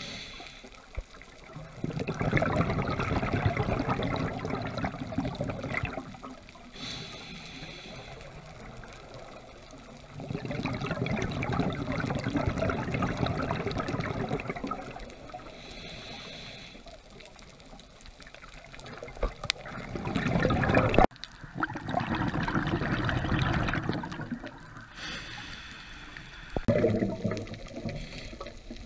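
Scuba regulator underwater: a diver breathing, with four bubbling exhalations of a few seconds each, about every eight seconds. A fainter hiss comes between them.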